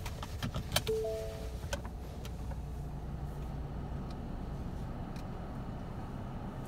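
Car engine idling with a steady low rumble heard inside the cabin. About a second in, a short two-note electronic chime sounds from the dashboard, amid a few sharp clicks in the first two seconds.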